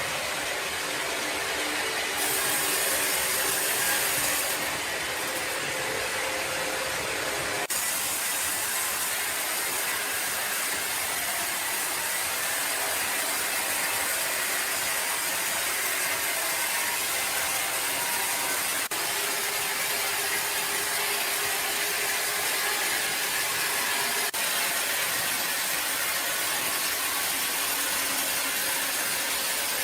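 Steady noise of woodworking machinery. A higher hiss cuts in and out abruptly a few times in the first eight seconds.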